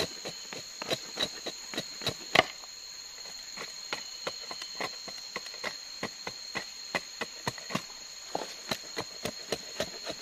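Irregular sharp clicks and snaps, a few a second, from a small tinder-and-twig fire being lit, with one louder snap a couple of seconds in. Under them, a steady high insect drone at two pitches, crickets or cicadas.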